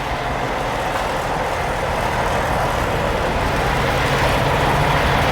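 Steady rumble and hiss of an idling semi-truck's diesel engine, with a low hum that grows stronger about four seconds in.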